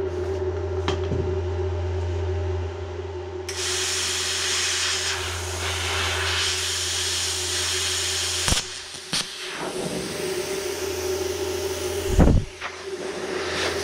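Electric welding arc hissing and crackling on the steel of an excavator bucket's quick coupler in two runs of several seconds, over a steady low machine hum. There are a few sharp clicks between the runs.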